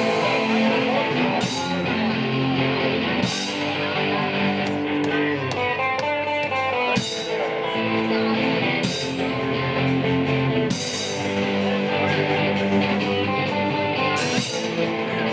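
Live rock band music: an electric guitar playing over a drum kit, with several cymbal crashes.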